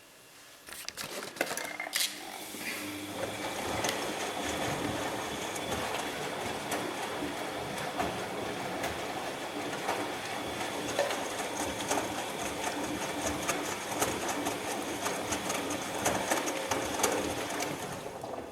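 Bosch MAXX 6 Express washing machine's drum turning the laundry in a wash cycle: a steady mechanical whir with many small clicks and knocks. It starts about a second in and stops near the end, the way the drum turns and then pauses between tumbles.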